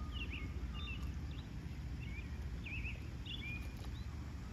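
Small birds chirping short twittering calls several times over a low steady rumble.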